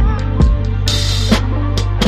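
Background music with a drum kit and sustained bass, with a cymbal crash about a second in.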